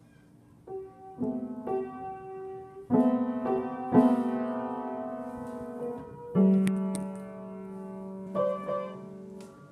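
Piano played unskilfully by pressing the keys through a plush toy's hands: scattered single notes and clusters, each left to ring and fade, the loudest struck about four seconds in.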